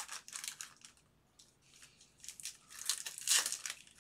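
Foil wrapper of a baseball card pack crinkling and tearing as it is peeled open around the cards, in two spells of rustling, the second longer and louder.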